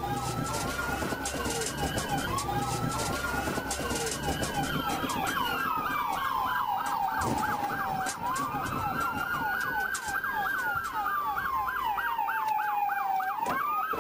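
Police car siren sounding: a slow rising and falling wail, which switches for a few seconds in the middle to a fast yelp of about five sweeps a second, then goes back to the wail.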